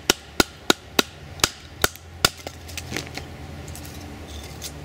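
A small froe driven down through a stick of kindling on a wooden stump: about seven sharp wooden knocks, roughly three a second, then they stop as the stick splits.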